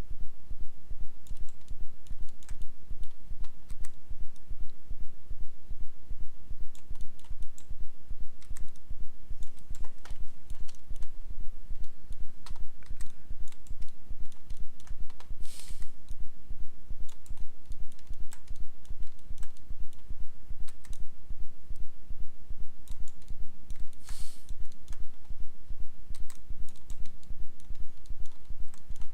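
Computer keyboard keystrokes and mouse clicks, scattered and irregular, over a steady low throbbing pulse about two to three times a second. There are two brief hisses about halfway through and again later on.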